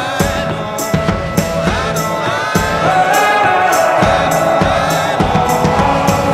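Background music: a song with a steady drum beat and a melody line.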